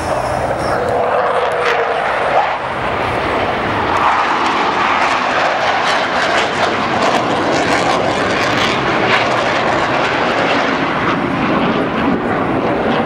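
Loud, steady jet noise from a Blue Angels F/A-18 Hornet flying past and climbing away with its smoke on.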